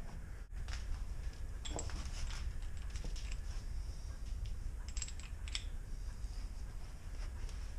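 Scattered light metallic clicks and clinks of a hand wrench and small tool being worked and handled on an iron hand printing press, over a low steady hum.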